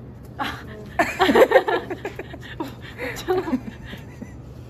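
A person laughing in a run of quick bursts about a second in, then a short spoken word.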